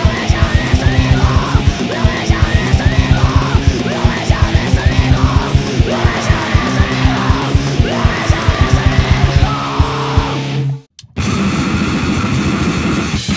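Powerviolence hardcore music: distorted guitar, very fast drumming and vocals. The track cuts off suddenly about eleven seconds in, and after a short gap the next track starts.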